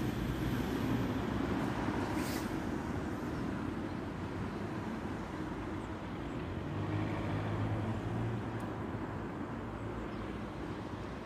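City traffic rumble: road vehicles running, one passing a little louder about seven seconds in. No siren tone is heard.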